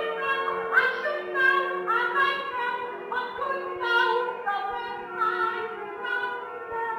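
A woman singing a Broadway musical number in character, her voice moving quickly from note to note over steadier held accompaniment. It comes from a live audience tape, so the sound is dull and muffled.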